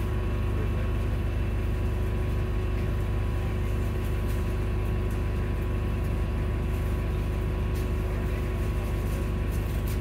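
Volvo hybrid bus heard from inside the saloon: a steady low rumble with a constant hum, holding level and not revving. A few faint clicks come near the end.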